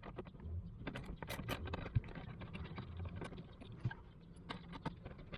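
Faint, irregular small clicks and scrapes of a hand tool undoing a T25 Torx screw.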